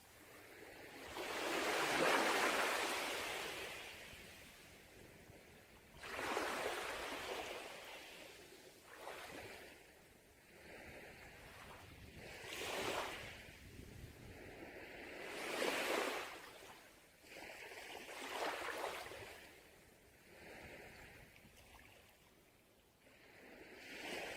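Sea waves breaking and washing up a beach, each one a swelling rush of hiss that fades away. There are about eight surges, every two to four seconds, and the loudest comes about two seconds in.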